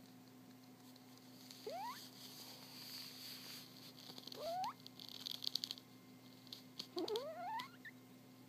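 Sleeping cat snoring: a thin squeaky whistle that rises in pitch on each breath, three times about two and a half seconds apart. Between the whistles come a soft hiss and a fluttering rattle of quick clicks.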